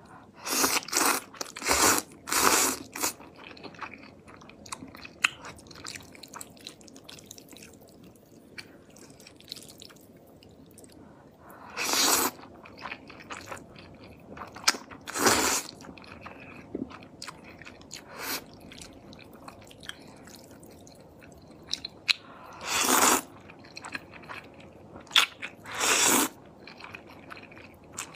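A person slurping thick noodles in black bean sauce and chewing them: a quick run of loud slurps in the first three seconds, two more about halfway through and two near the end, with quieter wet chewing in between.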